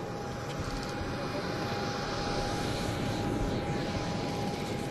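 Aircraft turbine engine running: a steady rushing noise with a steady whine on top, slowly growing louder.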